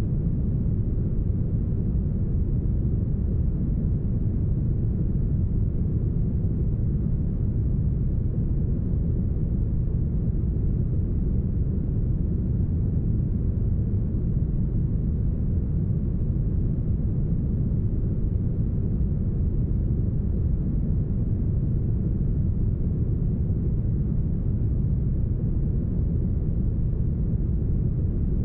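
Steady, smoothed brown noise: a deep, even rush heavy in the bass, with no high hiss and no changes.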